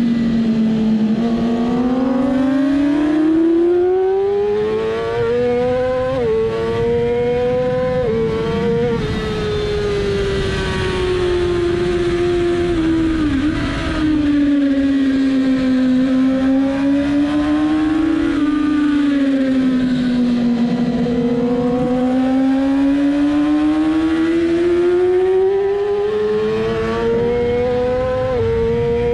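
2007 Yamaha R6 race bike's inline-four engine at high revs, heard from on board, its note climbing and falling as the bike accelerates and slows. There are quick upshifts about six and eight and a half seconds in, a long fall after that, and a hard climb again through the last part.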